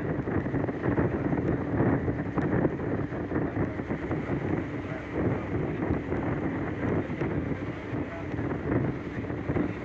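Wind buffeting the microphone aboard a ship, over the ship's steady engine drone.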